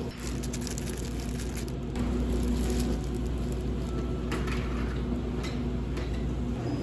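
Steady hum of cafe kitchen equipment, louder from about two seconds in, with light handling sounds over it: a plastic glove rustling as it presses on a croissant sandwich, then a few soft clicks as the sandwich is moved onto a plate.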